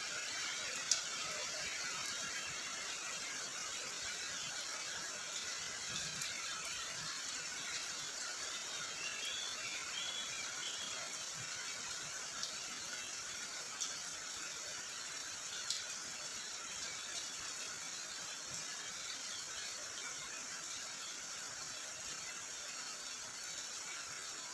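Steady rain hiss, with a few sharp ticks now and then.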